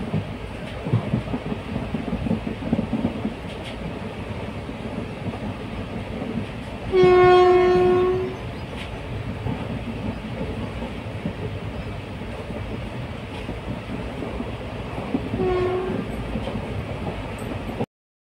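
Train running with a steady rumble, its horn sounding once for about a second, then again briefly and more faintly near the end.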